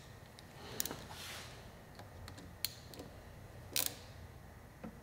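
Hex-bit driver tightening a small screw on a billet-aluminium clutch perch: a few faint, sharp metal clicks about a second apart, with light handling rustle.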